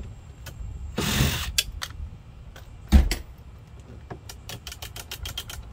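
Hands-on handling noise while taking apart a plastic ride-on toy car: a short scraping rustle about a second in, then a loud thud about three seconds in as a cordless drill is set down on the pavement, followed by a run of quick small clicks from plastic parts being worked by hand.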